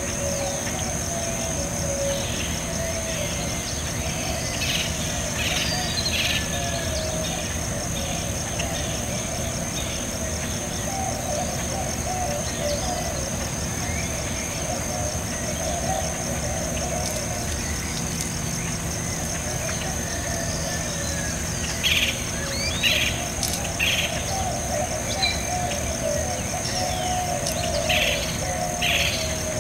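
Nature ambience: birds chirping in short clusters, a few seconds in and again near the end, over a steady high-pitched insect trill.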